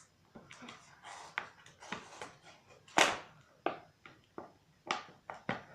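Packaging being handled during an unboxing: irregular rustling and crinkling, with a few louder swishes about three seconds in and near the end.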